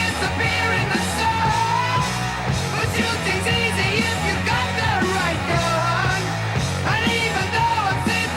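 Rock music soundtrack with a shouted, punk-style male vocal over guitars, bass and drums.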